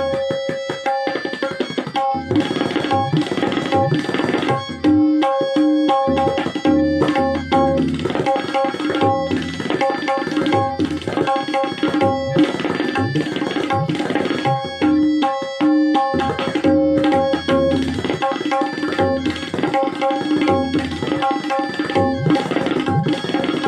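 Tabla solo: fast, dense strokes on the dayan and the bayan, the treble drum ringing between strokes and some bass strokes bending up in pitch.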